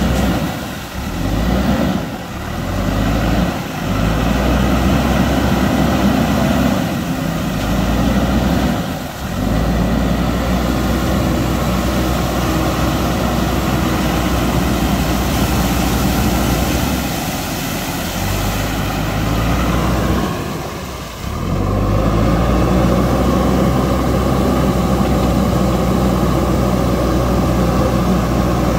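JCB 3DX backhoe loader's diesel engine running, its revs rising and falling as it drives through shallow river water, with water splashing and spraying around the wheels and bucket.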